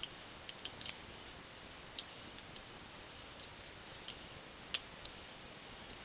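Faint, irregular clicks of a hook pick lifting the pin tumblers inside a Chateau C-960 disc padlock as it is picked: about ten small ticks scattered through, the sharpest a little under a second in.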